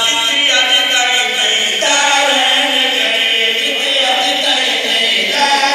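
A man chanting a qasida, an Urdu devotional poem, unaccompanied into a microphone, in long held notes that waver and slide.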